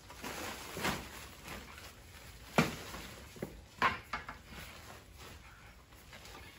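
Woven plastic feed sack being handled and set down, rustling, with a few sharp knocks; the loudest is about two and a half seconds in, and a short cluster follows near four seconds.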